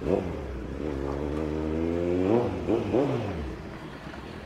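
Kawasaki Z900 inline-four engine revved in short throttle blips. There is one at the very start and two more about two and a half and three seconds in, each a quick rise and fall in pitch, with steady running in between as the bike pulls away.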